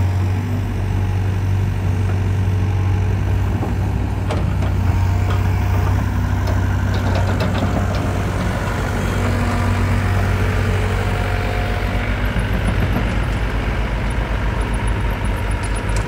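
Diesel engine of a 2015 Hitachi ZX85USB excavator running steadily, with a few light clicks and rattles in the middle.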